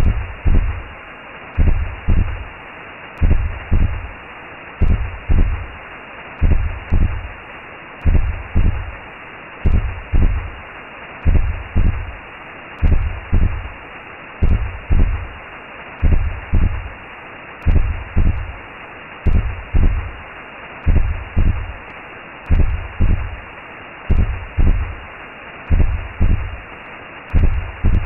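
Recreated womb sound: a slow heartbeat of low double thumps, about one beat every second and a half, over a steady whooshing noise.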